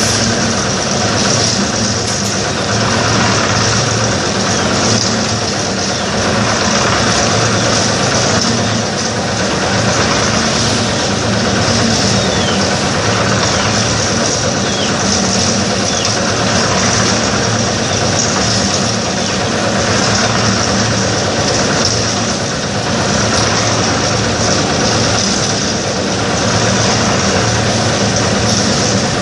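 Portable drum concrete mixer's engine running steadily at a constant speed.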